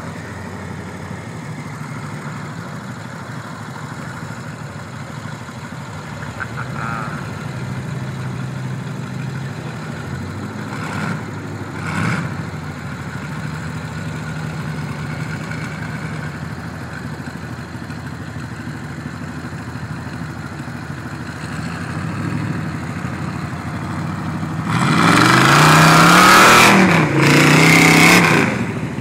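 Off-road truck engines running as the trucks drive through a flooded mud pit. About 25 seconds in, one engine revs hard, its pitch climbing and dipping, with a loud rush of water spray. This is the loudest part, lasting about four seconds.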